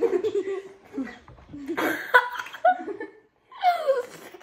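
Boys laughing and giggling in short bouts, with a brief pause a little past three seconds in.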